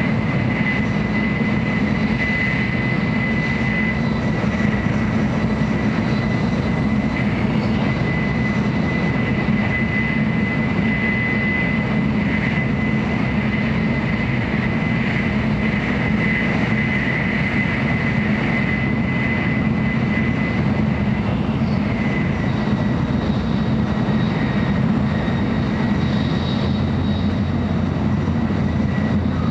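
Cabin noise inside a JR Central N700A Shinkansen car while the train runs: a steady, even rumble with a thin high tone held over it.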